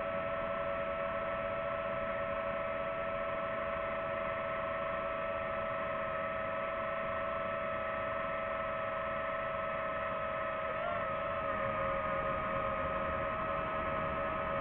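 Drone propellers and motors humming steadily while hovering, a constant whine over rushing noise, with a brief wobble in pitch about eleven seconds in.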